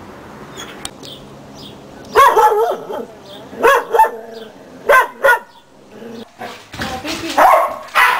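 A dog barking in short bouts: several barks from about two seconds in, the loudest bout near the end. These are play barks, a dog pestering another dog to play.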